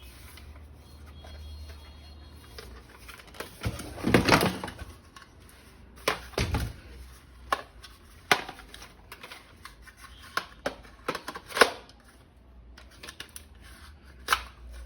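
Plastic clicks and clatter from an M416-style toy gun being handled, with a dense rattle about four seconds in, another soon after, and then scattered single clicks.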